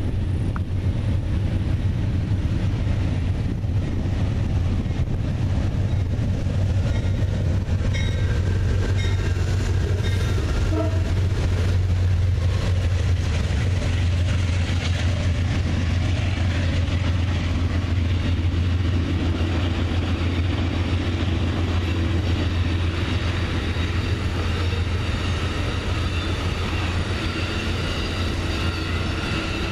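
Amtrak passenger train passing on the adjacent track behind a standing freight train: a steady low rumble of the train. Higher-pitched wheel-on-rail noise builds from about halfway through.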